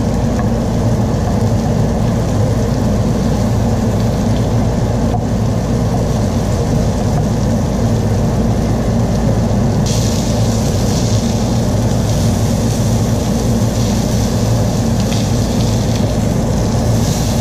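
Kitchen range-hood vent fan running with a steady low hum, over tautog fillets sizzling in butter in a hot frying pan on a high gas flame. The sizzle grows louder about ten seconds in.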